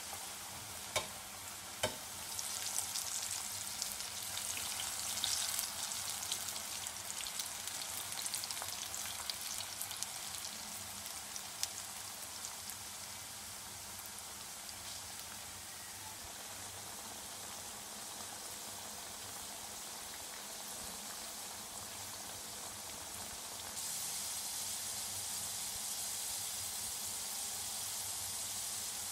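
Potato sticks deep-frying in hot oil in an aluminium pan: a steady sizzle full of fine crackles, with a few sharp clicks in the first two seconds. The sizzle steps up louder about 24 s in.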